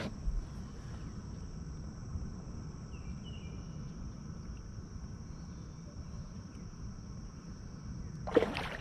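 Late-summer insect chorus, a steady high-pitched drone, over a low rumble, with a brief loud noise near the end.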